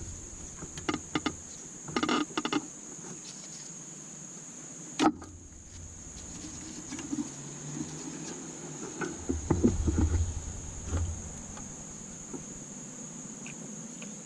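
Scattered clinks and knocks of hands working on a partly dismantled engine, with one sharper knock about five seconds in and a run of heavier thumps near the end. A steady high-pitched chirring runs underneath.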